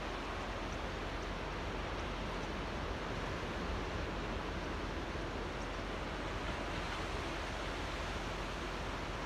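Small waves lapping in an ocean channel, a steady, unbroken wash of water with no separate breaks standing out.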